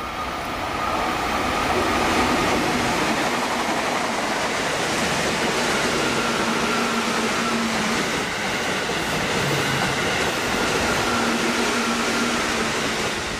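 Orange-and-green-striped electric commuter train running through the station at speed: a loud, steady rumble of wheels on rail with a faint hum, dropping off at the very end as the last cars pass.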